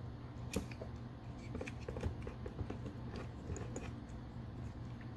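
Faint, scattered clicks and rattles of a plastic Transformers action figure being handled and its joints moved, over a low steady hum.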